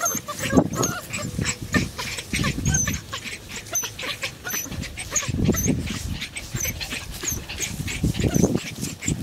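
Bernese mountain dog puppies yipping and whimpering as they scamper through grass, with a quick patter of rustling steps.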